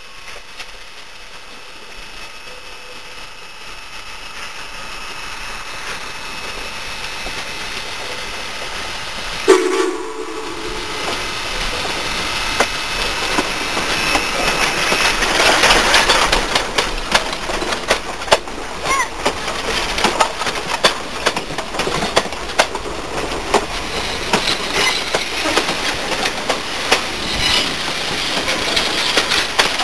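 Steam locomotive approaching and passing close by, building to its loudest about sixteen seconds in, with a brief loud burst about ten seconds in. The passenger coaches then roll past with a rapid clickety-clack of wheels over the rail joints.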